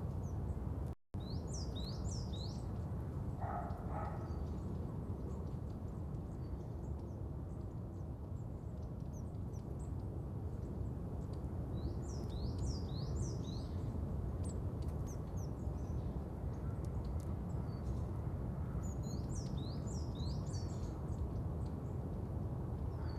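Outdoor ambience: a steady low background rumble with small birds chirping in several short clusters of quick falling notes. The sound cuts out briefly about a second in.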